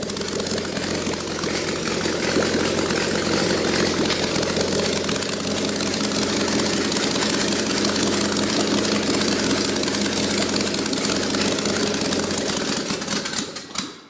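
Freshly rebuilt V16 engine on its first start, idling steadily, then shut off near the end and running down to a stop.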